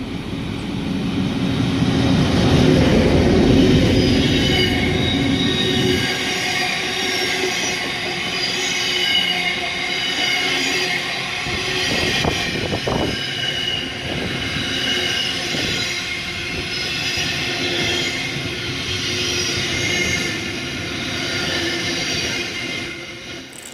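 MZ class locomotive hauling a transfer train past close by: a heavy low rumble as the loco goes by, then the train's wheels rolling past with a steady high-pitched squeal that wavers on and off.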